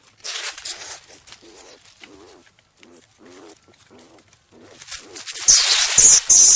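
Striped skunk vocalizing: a hiss-like burst about half a second in, then a run of short, low squeaky calls, and a louder raspy hiss near the end.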